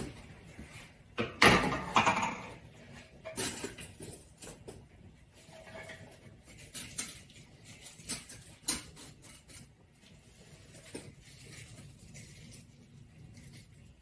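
Onion slices being loaded into a steamer pot: scattered clinks and knocks of the pot and its metal parts, with a louder clatter about a second and a half in and lighter ticks after.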